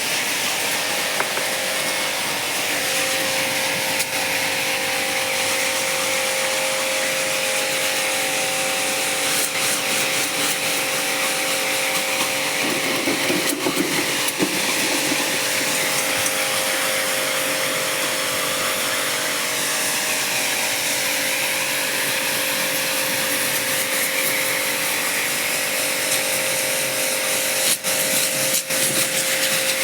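A motor-driven machine running steadily, with a strong even hiss and a steady hum, as from cleaning equipment.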